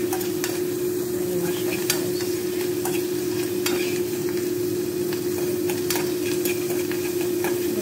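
Mushrooms and garlic sizzling in a frying pan on a gas stove as they are stirred, the utensil scraping and clicking against the pan every so often. A steady low hum runs underneath.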